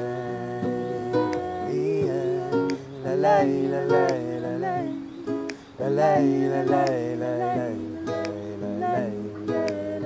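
A song: an acoustic guitar strummed steadily while a man and a woman sing a wavering melodic line between the lyric verses.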